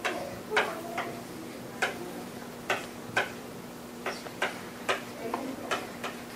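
Chalk tapping and scraping on a blackboard as words are written: about a dozen short, sharp taps at an uneven pace, roughly two a second.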